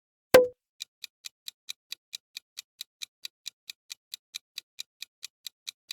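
A single sharp click, then a clock-tick sound effect ticking evenly about four to five times a second: a countdown timer running while the viewer guesses the flag.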